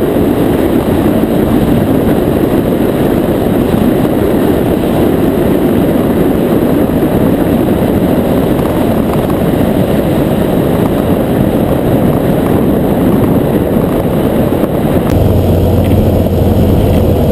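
Flamingo light sport aircraft's propeller engine running as the plane rolls on a paved runway, heard from a camera mounted outside under the wing as a loud, dense rushing noise. About fifteen seconds in it changes to the steadier, lower engine drone heard inside the cabin in flight.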